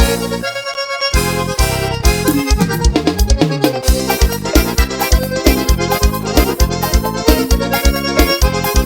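Instrumental break of beiradão dance music: an accordion melody over keyboard, bass and a steady drum beat. The bass and drums drop out briefly near the start and come back in about a second in.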